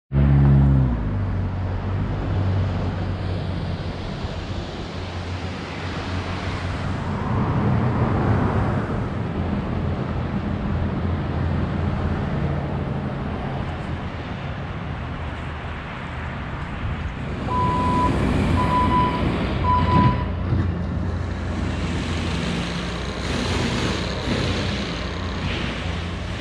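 Steady drone of road traffic and running vehicle engines, with three short high-pitched beeps at one pitch about eighteen seconds in.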